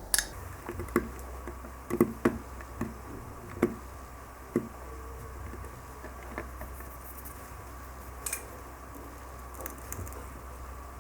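Kinetic sand being cut and crumbling: light, irregular soft ticks and patters, thick for the first four or five seconds, then only a few scattered ones.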